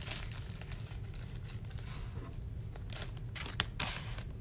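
Soft plastic rustling and crinkling as a trading card is handled with a clear plastic card sleeve, with a few sharper crinkles and a click about three to four seconds in.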